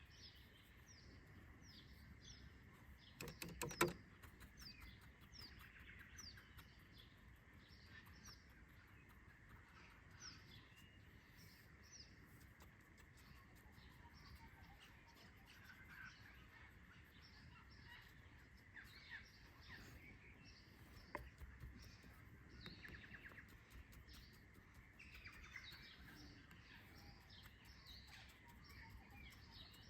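Faint birdsong: many short chirps from small birds, repeated throughout, over a faint steady high tone. A few sharp knocks about three to four seconds in.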